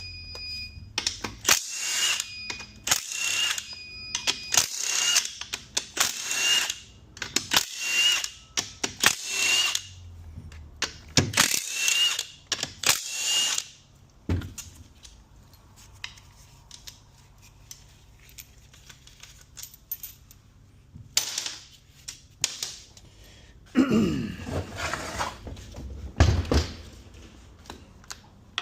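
Hand tools working bolts on an automatic transmission case: a run of short rasping strokes about one a second, then metal parts clunking and knocking as they are handled near the end.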